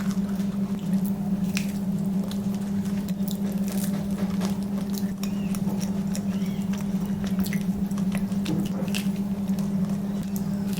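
Chewing focaccia, with scattered small mouth clicks, over a steady low hum.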